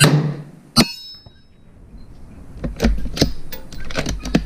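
A Savage Model 12 bolt-action rifle firing once, the shot echoing in the shooting shelter, followed just under a second later by a sharp ringing clang as the bullet strikes a steel plate. Then, from about halfway through, a run of sharp metallic clicks as the bolt is cycled to eject the spent case and chamber the next round.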